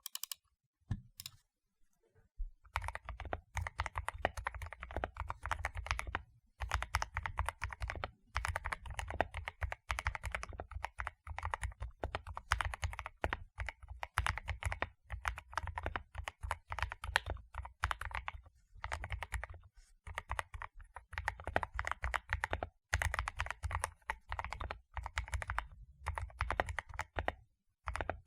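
Continuous typing on a modded Akko PC75B mechanical keyboard with lubed Akko Jelly White switches, lubed holee-modded stabilizers and noise-isolation material in the case, giving fast runs of key clacks with a deep low end. The typing starts about two and a half seconds in and pauses briefly a few times.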